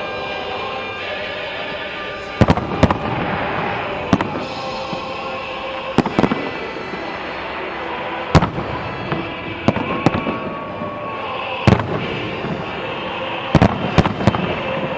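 Fireworks exploding, sharp bangs every second or two with a rapid cluster near the end, over a steady background of music.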